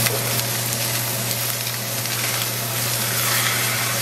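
Salmon fillet frying in butter in a nonstick pan, a steady sizzle, with a steady low hum underneath.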